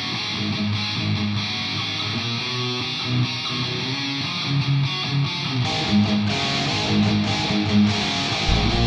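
Guitar intro of a heavy rock song, with held notes changing every second or so. The drums and the full band come in just before the end.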